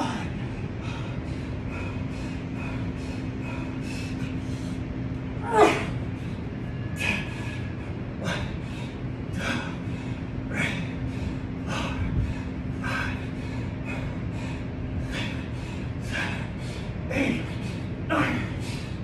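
A man breathing hard through a set of straight bar dips, with sharp forceful exhales about once a second. About six seconds in comes a louder grunt that falls in pitch, and a few more falling grunts come near the end. A steady low hum runs underneath.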